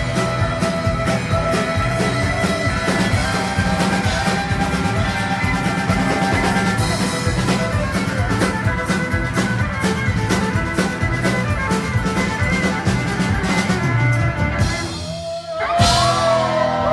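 Rock music with a steady drum beat, which breaks off briefly near the end. A loud sound then starts with a wavering, gliding pitch.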